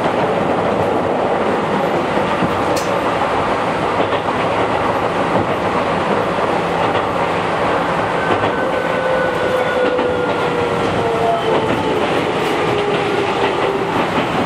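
Keihan 5000 series electric commuter train running, heard from on board: a steady rumble of wheels on rail with scattered clicks. In the second half a faint whine glides slowly down in pitch.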